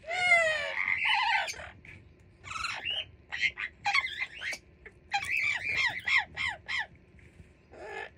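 Amazon parrots calling: a long rising squawk at the start, then a string of short squawks and whistled calls, many sliding down in pitch, with a dense run of them near the end.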